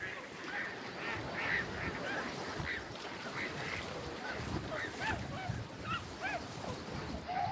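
A large flock of waterfowl calling, many short honking calls overlapping continuously, over a low wind rumble.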